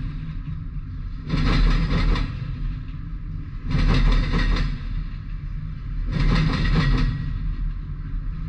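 Double-stack intermodal freight train rolling past: a steady low rumble, broken about every two and a half seconds by a second-long clatter as each set of wheels passes over the rail joints.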